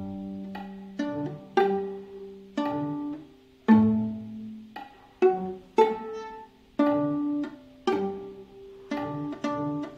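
Viola played pizzicato: a dozen or so plucked notes at a slow tango pace, each starting sharply and ringing away before the next. It is the cello line played an octave higher.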